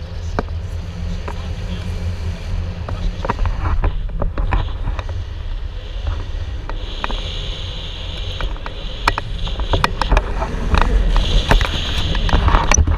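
Wind buffeting an action camera's microphone in paraglider flight: a steady low rumble, with scattered clicks and knocks from about three seconds in and stretches of higher hiss in the second half.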